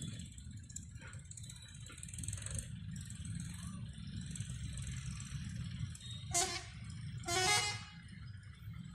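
Twin ALCO diesel locomotives running with a steady low rumble, and the horn sounded twice: a short blast about six seconds in, then a longer, louder one about a second later.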